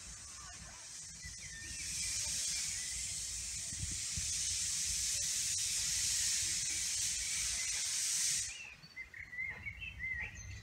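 Steam hissing hard from a narrow-gauge steam locomotive venting off steam, easing briefly about a second in and then cutting off suddenly near the end. Birds chirp once the hiss stops.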